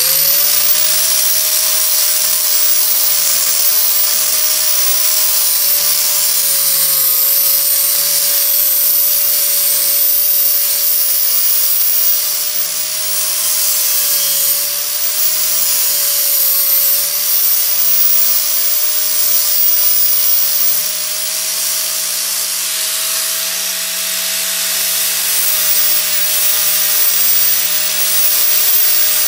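High-speed rotary tool grinding down the edge of a motorcycle chain guard. A steady high whine over a rough grinding hiss, the pitch sagging slightly now and then as the tool bears on the part.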